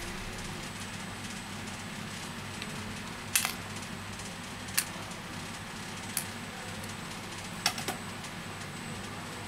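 A handful of short, sharp clicks and taps as a smartphone's back cover and fingerprint-sensor flex cable are handled with metal tweezers, over a steady low background hum.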